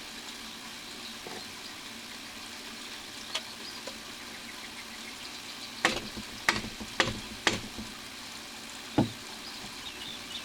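Sharp knocks and taps of PVC drain pipe and fittings being handled and fitted together: four in quick succession past the middle and one more near the end. A steady hiss runs underneath.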